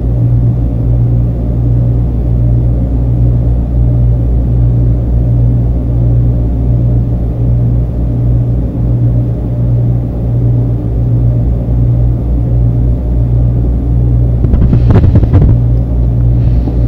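A loud, steady low rumble with a deep hum under it. A short louder clatter of knocks comes near the end. The uploader presents this rumble as noise harassment.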